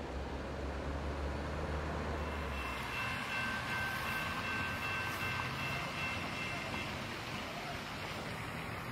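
Railroad grade-crossing warning bell ringing a steady high electronic tone with the gates down, over a low outdoor rumble. The bell tone comes in about two and a half seconds in and stops near the end.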